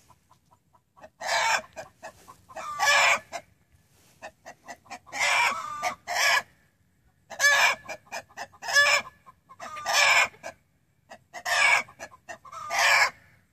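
Hen's egg song after laying: runs of quick clucks building into a loud drawn-out cackle, repeated every second or two and echoing.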